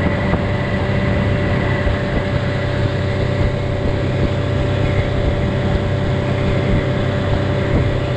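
Tiller outboard motor running steadily at cruising speed, driving a small aluminium jon boat along a river. Its even drone holds a few constant tones and does not change.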